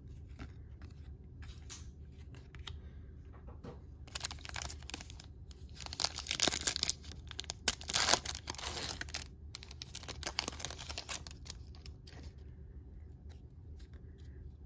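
Foil wrapper of a Panini Chronicles trading-card pack being torn open and crinkled by hand. It starts about four seconds in, is loudest in the middle and dies away a few seconds before the end. Light clicks of cards being handled come before and after.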